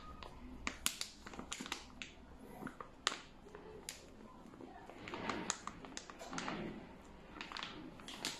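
A flour bag crinkling and rustling on and off, with scattered sharp ticks, as flour is shaken out of it into a mixing bowl.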